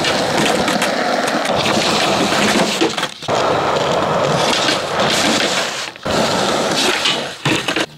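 Skateboard wheels rolling on concrete, a steady gritty rumble with sharp wooden clacks of the board. The sound drops away briefly about three seconds in and again about six seconds in.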